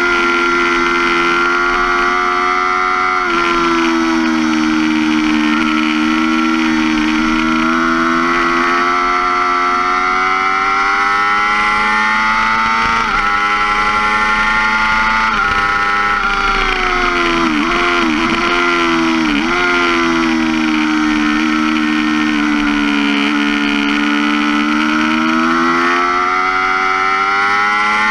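2005 Yamaha R6's 600 cc inline-four running at high revs on track, its pitch climbing through the gears with sharp drops at each change. A cluster of quick dips a little past the middle, and the pitch falls, then climbs again near the end.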